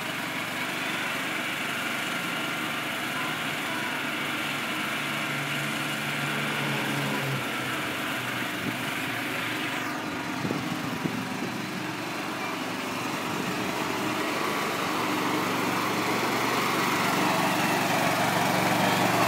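Lawnmower engine running steadily, growing louder over the last few seconds as the mower comes closer.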